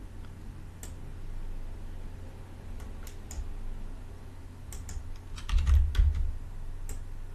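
Scattered clicks from a computer keyboard and mouse, with a quick run of keystrokes about three-quarters of the way through, over a steady low hum.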